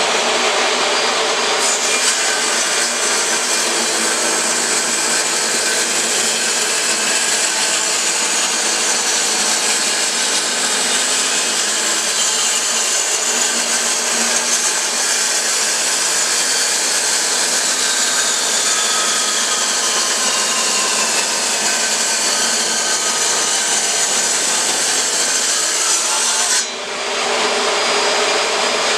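Table saw fitted with a 7.5-inch Harbor Freight blade cutting through 3/8-inch-thick aluminum plate. The sound is a loud, steady, high-pitched cutting noise over the running saw motor. It fills out about a second and a half in and dips briefly near the end.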